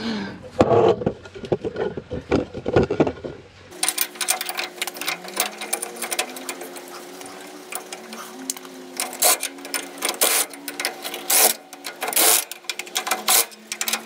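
Rapid clicking and clanking of hand tools on metal at the rear axle and leaf spring, over a steady hum that starts about four seconds in.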